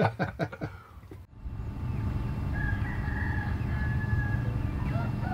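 A man laughing briefly, then, after an abrupt cut, roosters crowing from a distance over a steady low rumble.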